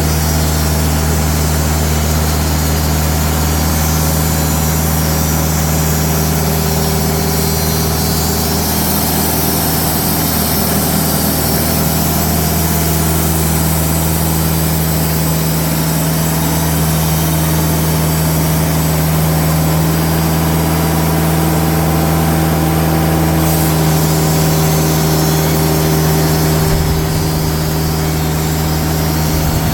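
Diesel engine of a TimberKing band sawmill running steadily with a constant low hum.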